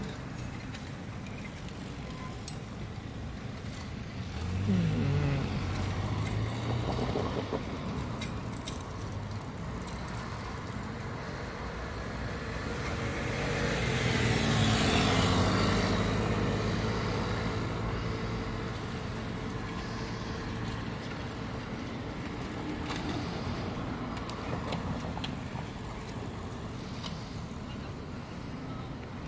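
City street traffic at an intersection: a steady background of passing motor vehicles. A vehicle's engine revs up and passes about five seconds in. A louder vehicle swells past around the middle, then fades.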